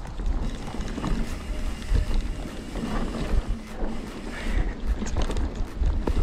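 Mountain bike ridden fast down a dirt trail: wind buffeting the microphone over the rumble of the tyres, with irregular clattering from the bike as it runs over rough ground.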